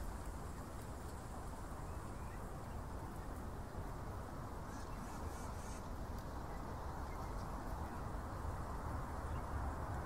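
Steady low rumble of distant road traffic, with faint high bird chirps about five seconds in.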